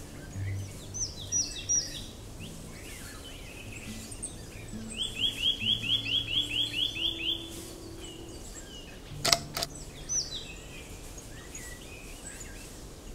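Small forest birds calling: scattered high chirps, and about five seconds in a quick run of about ten repeated notes. About two-thirds of the way through come two sharp clicks close together. Faint low music runs underneath.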